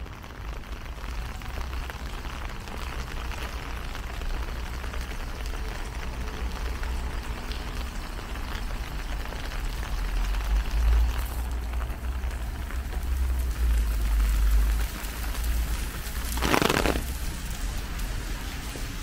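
Steady rain falling, an even hiss of drops over a low rumble, with one brief louder rush of noise about three-quarters of the way through.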